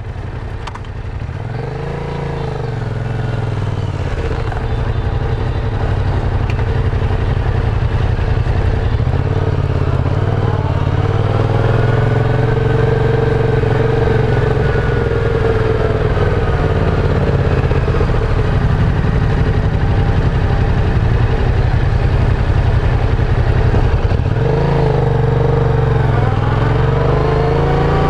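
Yamaha FZ sport motorcycle engine running on the road, its pitch rising and falling as the bike accelerates, eases off and changes gear, over a steady low rush of wind.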